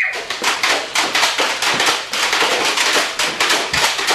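Nerf Gatling toy gun firing in a rapid string of sharp clicks and pops, about five a second.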